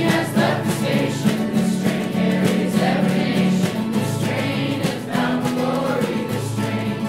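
A group of voices singing a gospel song together, choir-style.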